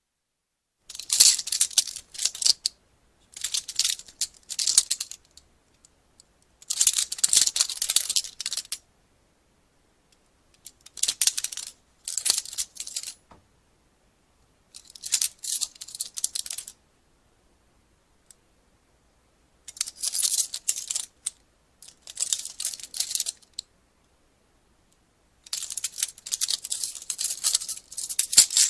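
Metal police handcuffs ratcheting and rattling as their locking mechanism is worked. The sound comes in about eight separate bursts of a second or two each, made of quick metallic clicks, with silence between them.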